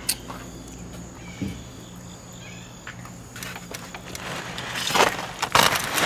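Low steady hum with a few faint ticks, then about four and a half seconds in a loud rustling and crinkling as the foil-wrapped rack of smoked ribs is handled and pulled apart.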